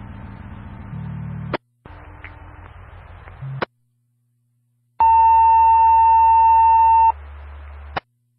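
Fire department two-way radio channel picked up by a scanner: keyed transmissions with no voice, each a hiss ending in a squelch click. About five seconds in comes a loud, steady beep tone lasting about two seconds.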